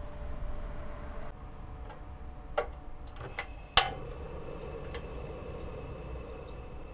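Water filling a kettle stops about a second in; a couple of clicks follow, then the portable gas stove's igniter clicks loudly and the burner lights, hissing steadily under the kettle.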